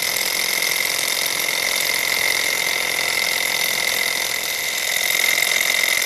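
Small two-piston gamma-type Stirling engine with a belt-driven generator running steadily, a continuous mechanical whir with a high steady whine; its metal-on-metal parts are freshly lubricated with graphite for smoother, quieter running.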